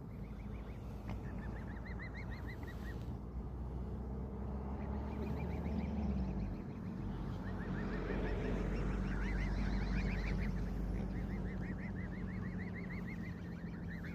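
Cygnets peeping in rapid runs of short, high calls, with a breathy hiss swelling up in the middle. A steady low rumble runs underneath.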